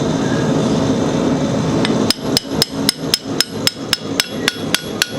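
Hammer blows driving a long, rounded-profile blacksmith's chisel into a hot square iron bar on the anvil, cutting a groove as the chisel is rocked along a line. Sharp ringing strikes, about four a second, begin about two seconds in over a steady hum.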